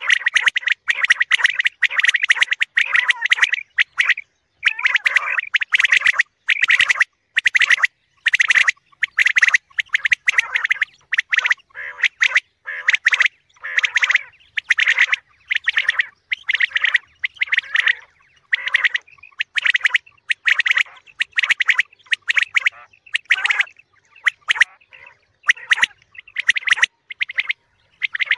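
Recorded quail calls: short, squawky bird calls repeated over and over in quick clusters with brief pauses between them.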